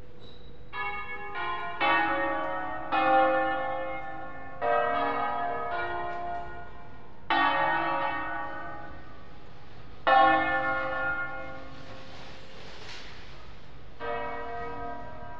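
The seven bells of Cremona Cathedral, tuned in A-flat, rung in concerto. The strikes come in irregular groups, and each rings on and fades before the next.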